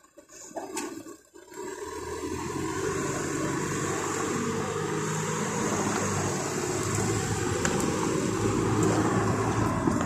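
Road traffic moving off over the level crossing as it reopens: a rushing noise of car engines and tyres with a low hum, building gradually from about a second and a half in.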